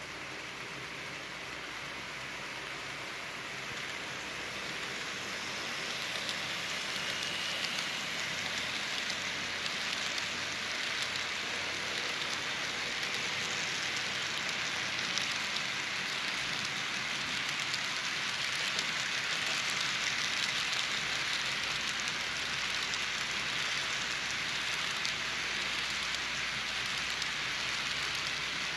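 N scale model coal train rolling past close by: a steady, fine rattling hiss of the hopper cars' small metal wheels on the track, growing louder over the first few seconds as the train nears, then holding.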